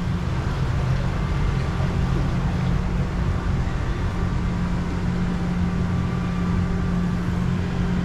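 Steady, unchanging mechanical hum of a river rapids ride's conveyor lift carrying a round raft up its slatted ramp.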